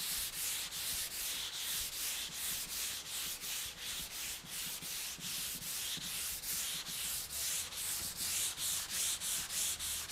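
Hand sanding of polyurethane primer on a pickup tailgate with a small sanding block and 220-grit paper: steady back-and-forth rasping strokes, about three a second.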